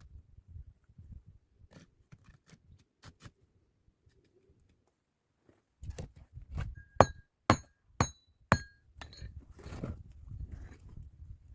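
Four sharp, ringing clinks of hard objects struck together, evenly about half a second apart, amid soft handling and rustling sounds.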